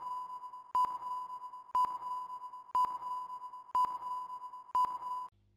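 Quiz countdown-timer sound effect: a sharp tick about once a second over a steady high tone, cutting off suddenly near the end as the count runs out.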